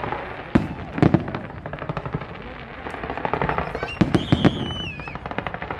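Fireworks display: sharp bangs of bursting shells over dense, rapid crackling. A high wavering whistle starts about four seconds in and sags in pitch.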